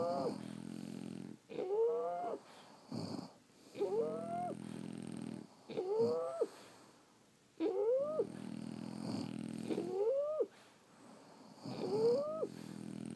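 French bulldog snoring in its sleep, a breath about every two seconds: each one a high, squeaky whistle that rises in pitch, then a low buzzing rattle. This noisy, wheezy snoring is typical of the breed's short, flat-faced airway.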